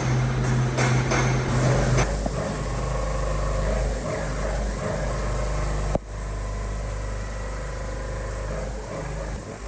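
Machine-shop noise on steel work: several sharp metallic knocks over a steady low machine hum, then a steady machine running noise. The sound changes abruptly about six seconds in.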